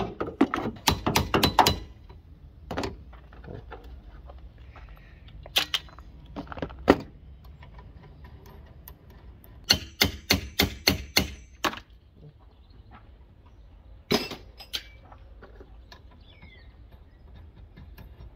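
Clicks and knocks of a car's plastic windscreen cowl panel and its clips being worked loose by hand, in short clusters, with a quick run of evenly spaced clicks about ten seconds in.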